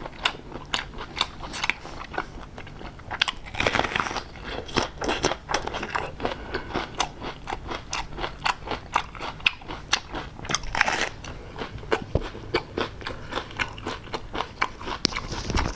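Close-up eating sounds: a person biting and chewing food, with many sharp clicks and short crunches and a couple of louder crunches about four and eleven seconds in.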